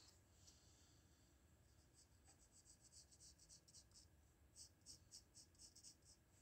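Pencil scratching on paper in short, faint sketching strokes. The strokes are sparse at first, then come in a steady run of about three or four a second.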